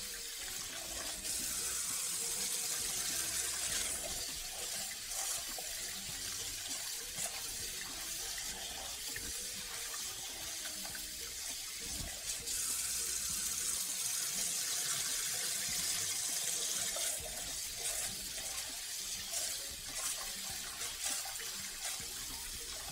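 Kitchen tap running into a rice cooker's inner pot in a stainless steel sink while a hand swirls the rice: a steady hiss and splash of water, louder for a few seconds twice. It is rice being rinsed of its starch before cooking.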